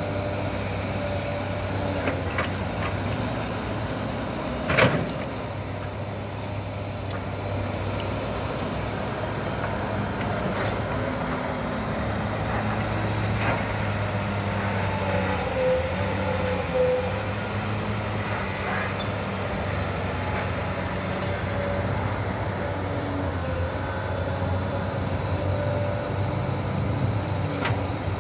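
Kobelco crawler excavator's diesel engine running steadily under load as it digs, swings and dumps soil, with a wavering higher whine midway. A single sharp clunk about five seconds in.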